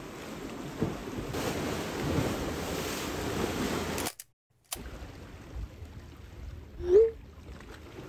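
Sea waves washing against a concrete quay, a steady rushing that drops off suddenly about four seconds in, leaving a quieter wash of water. About seven seconds in, one short rising cry stands out above it.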